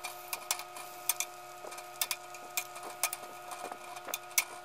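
Irregular sharp clicks and crackles from Brussels sprouts on a metal baking sheet under the oven broiler as they are turned with a knife and tongs, over a steady hum with a few held tones.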